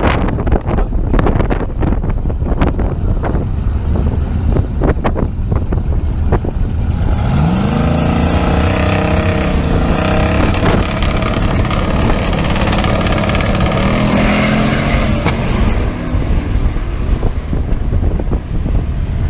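LS-swapped Plymouth Duster drag car's V8 at the starting line, revving up after several seconds and launching hard, its note climbing through the gears as it pulls away down the strip. Wind buffets the microphone before the launch.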